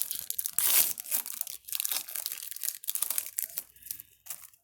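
Hockey card pack wrapper being torn open and crinkled by hand, an irregular run of sharp crackles.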